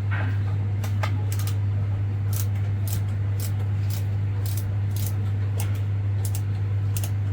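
Microwave oven running: a steady low hum, with faint irregular high-pitched ticks over it.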